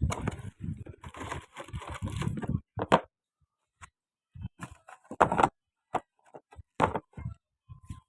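Packaging being handled: about two and a half seconds of rustling, then several separate knocks and clicks.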